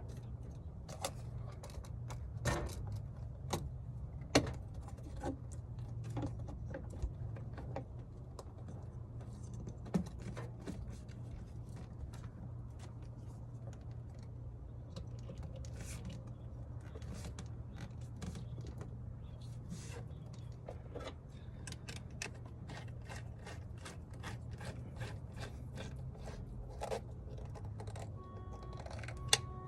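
Scattered small clicks and taps of hand tools and screws as a MAP sensor is screwed back onto a cold air intake, over a steady low hum. A few sharper taps come early on, and a louder knock right at the end.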